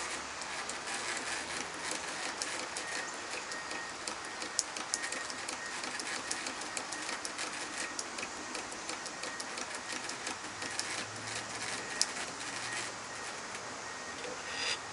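Antique pedal-driven scroll saw running: the treadle cranks turn a cast iron flywheel and belt that work the blade up and down, giving a steady mechanical rattle with scattered sharp clicks.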